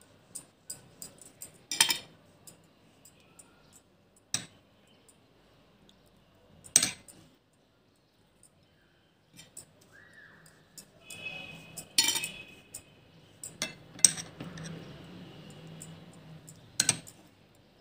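A metal spoon clinking against a glass bowl as chili-garlic paste is scooped and stirred: about half a dozen sharp, separate clinks spread out with quiet gaps between.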